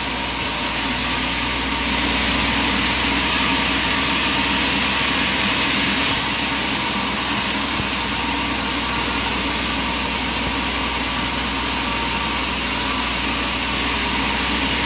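Sawmill engine running steadily, a constant machine drone with a high steady whine.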